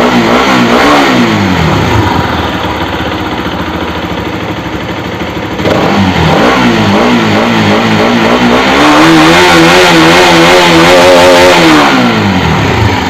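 Bajaj RS200's single-cylinder engine revved twice from idle: a short blip, then a longer rev held high for a few seconds before dropping back. It runs smoothly, the damaged roller bearing and camshaft that caused its valve-clearance noise having been replaced.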